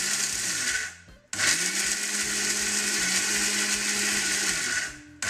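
Electric mixer grinder running with its small steel spice jar, grinding dry whole spices in pulses rather than continuously. The motor winds down just under a second in, stops for a moment, starts up again and runs for a few seconds, then winds down near the end.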